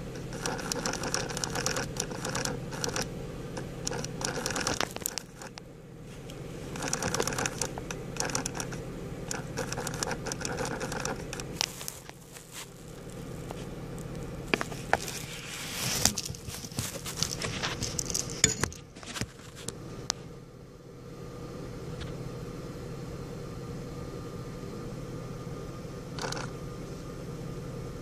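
2005 Honda Pilot's HVAC air-mix motor (blend-door actuator) chattering in rapid crackling runs of several seconds, three times, then falling quiet about two-thirds of the way through. A steady low hum runs under it. The chatter comes from a dirty air-mix motor, which cleaning cured.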